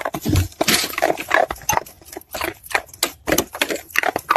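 Beagle baying with its head thrown back, in a rapid string of short, broken calls.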